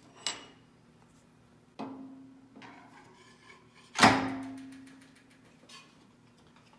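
Steel milling arbor and cutter clanking against the horizontal mill's spindle and vise as the arbor is fitted. Two metallic knocks that ring out with a low steady ring, the louder one about four seconds in, with lighter taps around them.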